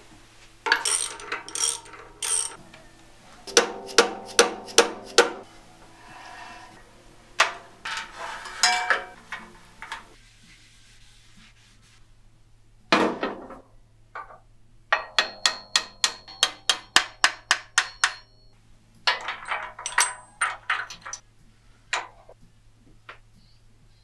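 Sharp metallic taps and clinks in quick runs of several a second, with pauses between, from hand tools working on a cast-iron bandsaw frame.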